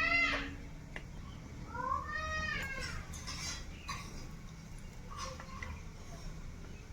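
A cat meowing twice: one call right at the start and a second, rising-then-falling call about two seconds in. A few faint clicks follow.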